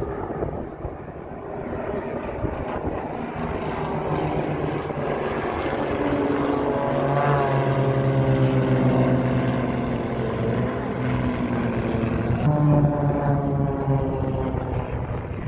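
Two small propeller-driven aerobatic planes flying overhead in formation, their engines and propellers droning. The pitch slides as they manoeuvre past, and the sound is loudest about halfway through.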